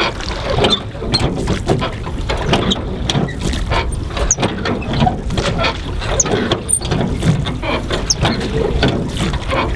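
Metal oarlocks of an aluminum rowboat squeaking and knocking as the oars are pulled through repeated strokes, with several short high squeaks among the clicks.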